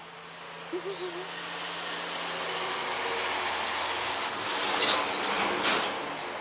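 A vehicle passing by: a rushing noise that builds over several seconds, is loudest near the end, then fades.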